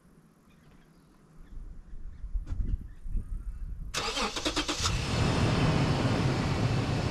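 A car engine cranks and catches about four seconds in, then runs steadily. A few soft knocks come before it.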